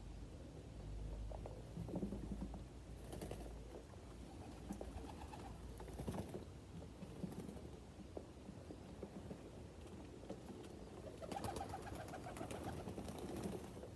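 Domestic pigeons cooing in the loft.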